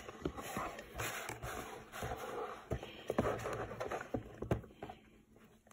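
Hands squeezing and pressing kinetic sand in a plastic tray: soft, irregular crunching and scraping with a few small taps, going quiet near the end.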